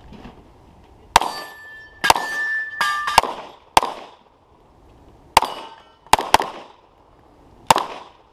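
About nine pistol shots from a SIG P320 X5, fired in quick pairs and singles at an uneven pace. Several are followed by a brief metallic ringing, like steel targets being hit.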